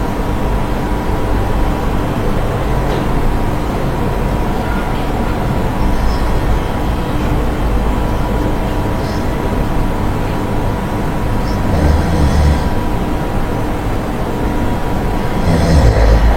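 Snoring over a steady low rumble, with louder low snores about twelve seconds in and again near the end.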